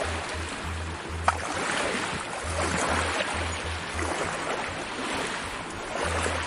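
Ocean-wave sound effect, a surging wash that swells and ebbs, over background music with a pulsing bass. A single sharp click about a second in.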